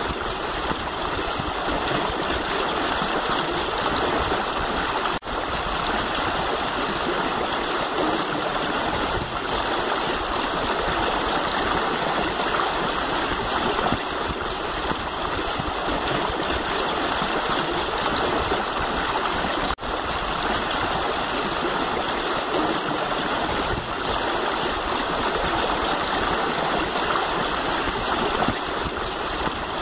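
River water rushing and splashing steadily over stones, with two very brief dropouts, about five seconds in and about twenty seconds in.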